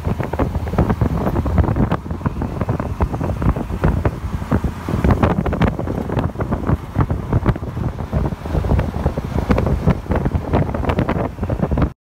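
The 350 small-block V8 of a 1979 Chevrolet C10, running through Flowmaster street mufflers, with heavy wind buffeting on the microphone.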